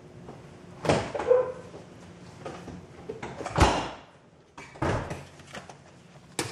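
A few separate knocks and clatters of kitchen handling as a plastic container of shrimp is fetched, with the loudest a sharp thump about halfway through.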